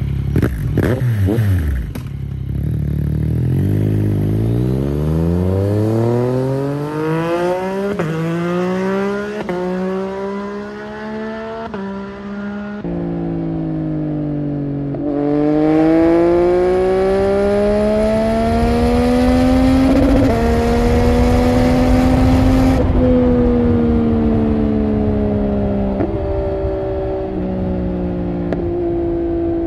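Yamaha MT-09's three-cylinder engine accelerating hard, its pitch climbing with a slight drop at each of several quick upshifts. It then falls off, pulls up again and settles into a steadier run at lower revs.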